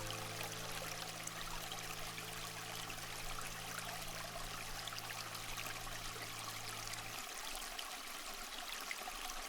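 Steady, even hiss like running water in an ambient relaxation soundtrack, under a low sustained synth drone that stops about seven seconds in.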